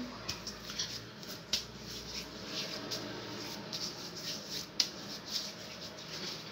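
Hands spreading lotion over skin: soft, irregular sticky clicks and pats from fingers and palms on wet, creamy skin, with a sharper smack about a second and a half in and another near five seconds in.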